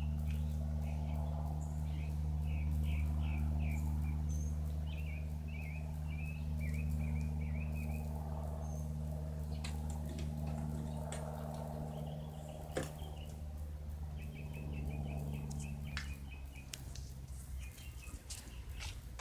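Single-engine Cessna propeller plane droning overhead, a steady low hum that fades away about 16 seconds in as it climbs off. Small birds chirp throughout.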